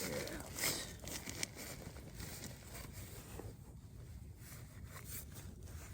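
Soft rustling and crinkling of camping gear and clothing being handled, with a few sharper scuffs in the first second or two, then quieter.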